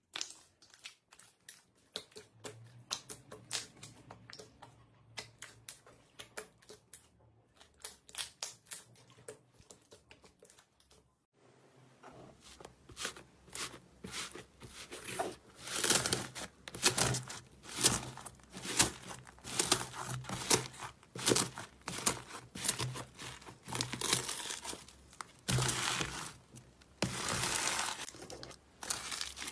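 Slime being squeezed, stretched and poked by hand, giving dense, irregular crackling and popping clicks that grow louder about halfway through.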